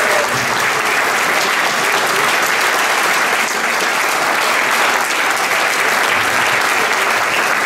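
A large seated audience applauding steadily, a dense, even clapping from many hands at once.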